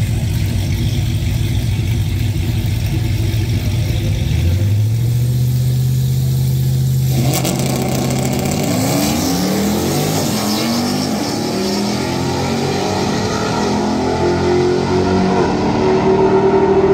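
Ram pickup truck's engine at a drag strip start. It runs steadily, is brought up to a higher held rpm about four and a half seconds in, then launches hard about seven seconds in. The engine note then climbs and drops repeatedly through the gear changes as the truck accelerates away.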